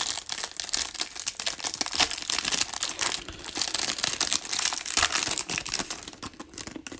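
Clear plastic wrapper of a trading-card pack being torn open and crinkled by hand, a dense crackling that thins out and fades near the end.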